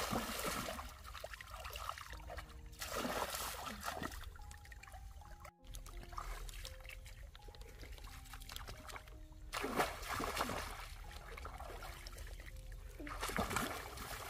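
Shallow muddy water in a flooded rice paddy splashing as a person wades and plunges her hands into it, in several short bursts with quieter trickling and sloshing between.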